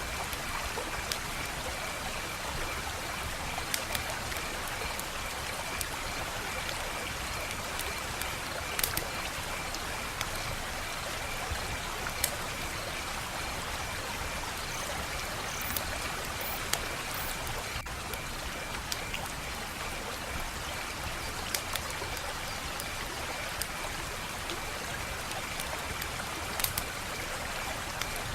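Wood fire burning: a steady hiss with irregular sharp pops and snaps of crackling wood, a few every several seconds.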